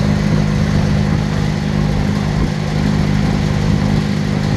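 An engine running at a steady idle: a constant low hum that holds the same pitch throughout.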